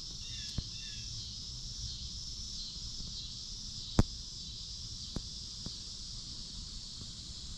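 A steady outdoor insect chorus, high and continuous, with a few faint chirps in the first second. Several sharp pops cut across it, the loudest about four seconds in: audio pops from the camera's microphone.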